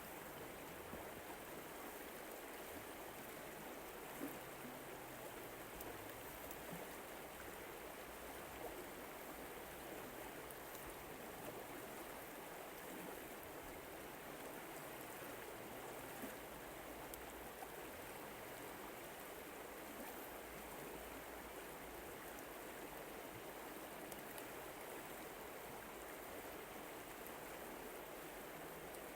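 River water flowing, a soft, steady rush with occasional small ticks of water.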